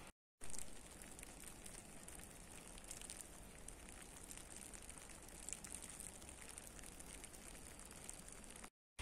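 Faint, steady patter of sleet (rain mixed with wet snow) falling on wet pavement and snow: a soft hiss flecked with small ticks of drops. It cuts out briefly just after the start and again near the end.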